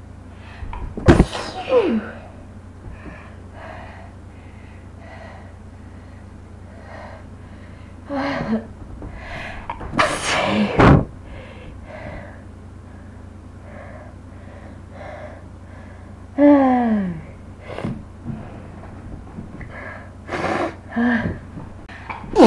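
A woman sneezing repeatedly, with about five loud sneeze bursts spread through the span. Several end in a voiced cry that falls in pitch, and there are gasping inhalations and sniffles between them.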